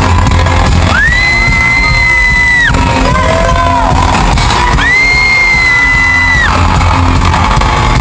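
Live pop-rock band music played loudly through an arena PA, recorded from within the crowd. Two long, high-pitched held notes sit over the band, each about two seconds, one near the start and one about halfway.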